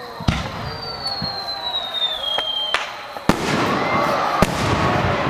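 Aerial fireworks bursting: about four sharp bangs, the loudest about three seconds in, with a firework whistle sliding slowly down in pitch for about two seconds before the second burst.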